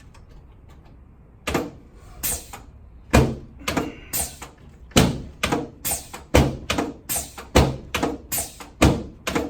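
Chiropractic treatment table knocking and thumping in a quick, fairly regular series as the patient is worked on, starting about a second and a half in, roughly one or two sharp knocks a second.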